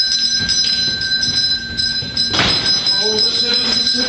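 A bell ringing over and over with high sustained tones, with one heavy thump about two and a half seconds in.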